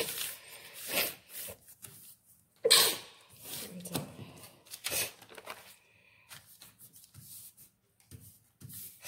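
Brown pattern paper rustling and crinkling as hands handle and smooth the cut-open skirt pattern pieces flat on a sheet of paper, in several bursts, the loudest about three seconds in, fainter rustling after.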